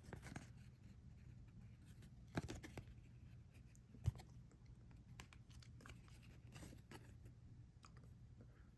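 Faint rustling and clicking of trading cards being handled and slid one behind another, with two brief louder taps about two and a half and four seconds in.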